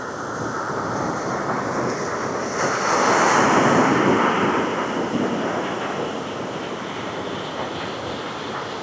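Ocean waves washing in: a steady surf hiss with one wave swelling up about two and a half seconds in and easing off again.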